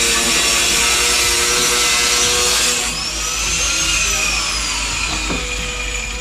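An off-screen power tool runs with a loud, dense hiss until about three seconds in. It then eases off and winds down with a falling whine.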